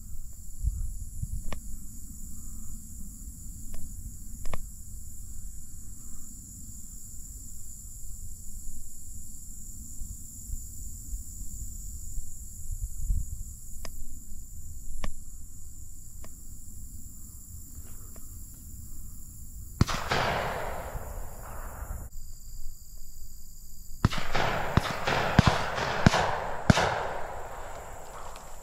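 Wind rumbling on the microphone with a few scattered sharp clicks. About twenty seconds in comes a sudden loud crack that trails off over a couple of seconds, and a little later several seconds of rustling noise studded with sharp cracks.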